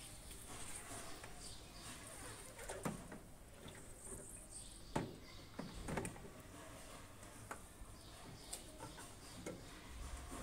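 Faint plastic knocks and clicks, about four spread through the stretch with the loudest about five seconds in, as the plastic water tank of an ultrasonic humidifier is set onto its base and the mist outlet is fitted on top.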